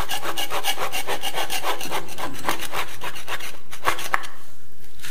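A hand blade scraping and shaving excess plaster off an inside wall corner, in fast, even back-and-forth strokes that thin out and stop about four seconds in.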